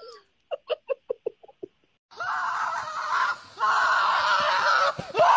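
A cat giving a quick run of about ten short calls. Then, from about two seconds in, a horse makes a loud, hoarse, drawn-out call in three long stretches.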